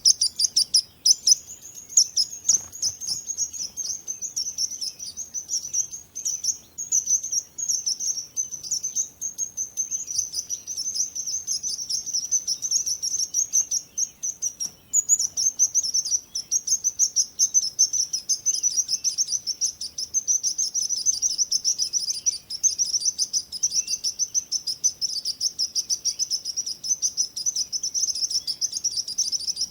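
Small songbirds chirping and twittering continuously, a dense run of rapid, high-pitched chirps overlapping one another.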